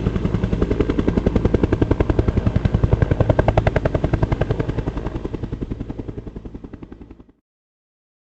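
Helicopter rotor blades chopping in a rapid, steady, rhythmic beat. The sound fades away over the last couple of seconds and stops suddenly about seven seconds in.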